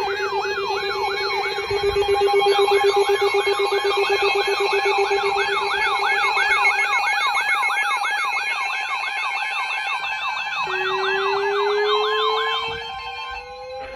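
Electronic sirens in yelp mode, sweeping up and down in pitch about three times a second, layered over steady tones. Near the end the yelping stops and a slower siren tone rises steadily in pitch.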